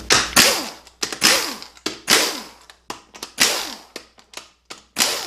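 A string of loud, sharp metallic clacks, each with a short ringing tail: a hand-held power tool with a 10 mm socket spinning out the bolts on a 4T65E automatic transmission's valve body, the tool and bolts knocking against the aluminium housing.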